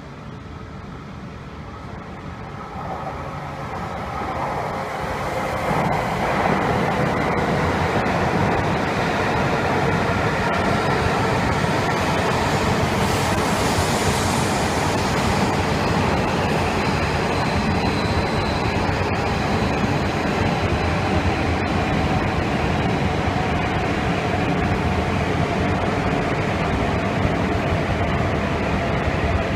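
A Shinkansen train with E5-series cars pulls slowly along the platform. Its rolling rumble grows over the first few seconds as it draws near, then holds steady while the cars slide past. A faint whine in it slowly sinks in pitch as the train slows.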